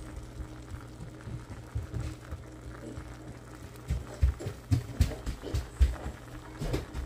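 Handling sounds from a food thermometer probe being pushed into a piece of chicken over a cast-iron pot: soft knocks and thumps, several in the second half, over a steady low hum.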